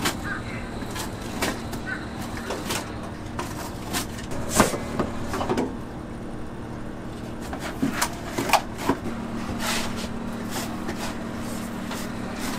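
Food-truck kitchen ambience: a steady low machine hum that gets a little louder about nine seconds in, with scattered clicks and knocks of kitchen work, the loudest about four and a half seconds in and around eight to nine seconds in.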